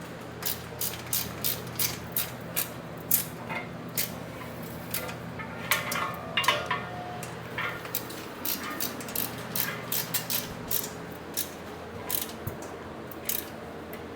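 Repeated metallic clicks, about two or three a second, from a hand tool tightening bolts into the metal base of a patio swivel chair, with a brief clatter of metal parts about six seconds in.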